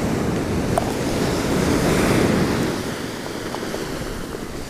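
Surf breaking on a shingle beach, with wind buffeting the microphone. The rush of a wave swells about a second in, then eases off.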